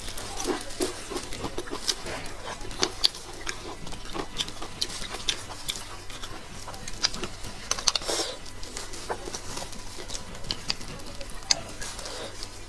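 Close-up eating sounds of bone marrow: irregular wet mouth clicks and smacks while it is chewed, with a metal spoon scraping marrow out of the bone.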